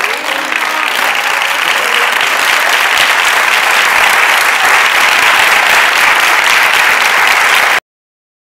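Theatre audience applauding, swelling over the first second and then holding steady and loud. The applause cuts off abruptly near the end.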